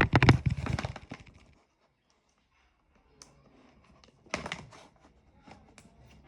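Hard plastic parts being handled and fitted together: a quick run of loud clacks and rattles, a pause, then scattered clicks and a short cluster of clacks.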